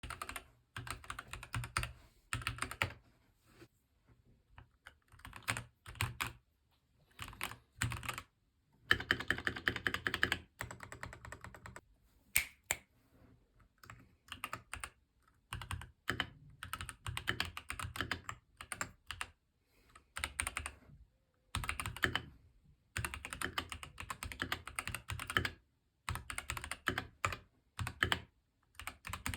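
Keychron V1 mechanical keyboard, pre-lubed and silicone-modded, being typed on: runs of rapid keystroke clacks with short pauses between them.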